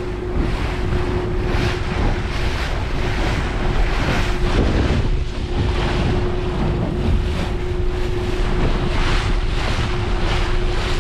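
Wind buffeting the microphone and choppy water splashing against the hull of a Stabicraft 2050 Supercab cruising slowly, over the steady hum of its outboard motor.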